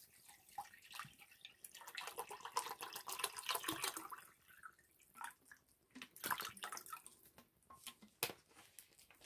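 Water pouring from a plastic bottle into a metal canteen cup, splashing steadily for about four seconds. It then tails off into a few scattered drips and light knocks.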